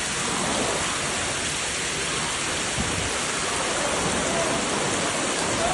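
Heavy rain pouring down, a steady, even hiss of water.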